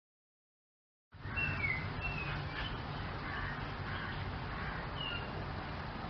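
Outdoor ambience cutting in abruptly about a second in: a steady background hiss and low rumble, with a few short, high bird chirps, three close together early and one more near the end.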